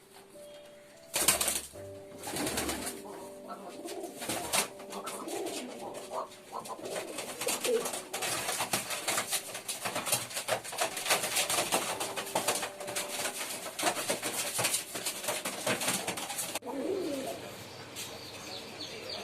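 Domestic pigeons cooing in low, repeated notes, over frequent rustling and clicking noise. There is a loud knock about a second in, and most of the rustling stops suddenly near the end.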